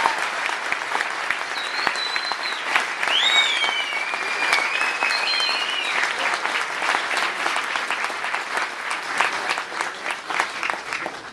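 Audience applauding, a dense patter of many hands clapping, with a few high calls rising over it about two to six seconds in. It cuts off suddenly at the end.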